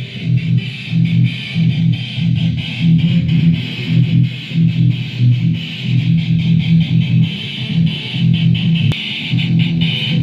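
Electric guitar playing a steady, repeating rhythmic pattern.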